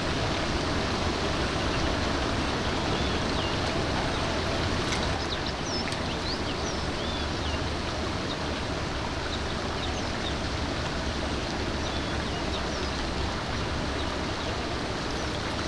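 Steady rushing outdoor noise, with a few faint bird chirps in the middle of the stretch.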